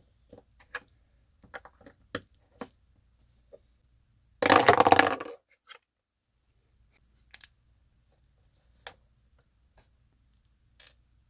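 Lego bricks being handled and pressed together: scattered sharp plastic clicks, with one loud clatter lasting about a second a little under halfway through.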